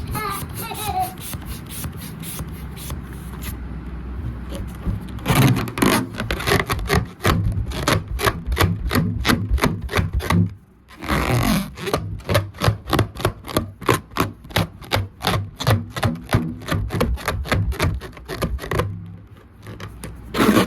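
Rubber balloon being rubbed and squeezed: a rapid series of rubbing squeaks and scrapes, with a short pause about ten and a half seconds in.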